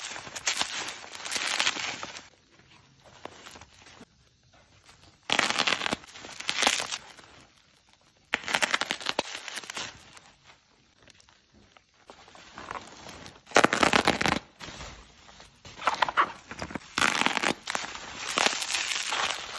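Bubble wrap crinkling and rustling as it is unwrapped by hand. It comes in bursts of a second or two with quiet gaps between, and there is a sharper, louder crackle about two-thirds of the way through.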